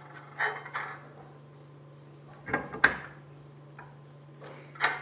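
A small metal square being slid and set against a steel bar and aluminium sheet, giving short scrapes and knocks. They come about half a second in, near three seconds (the loudest, with a sharp click) and just before the end, over a steady low hum.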